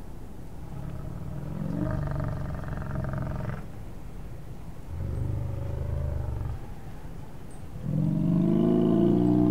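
Brown bear growling and roaring: three long, rough calls, the last, starting near the end, the loudest.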